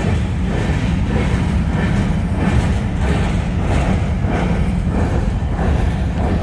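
Union Pacific freight train rolling past, a steady heavy rumble of the cars on the rails with faint repeated clacks.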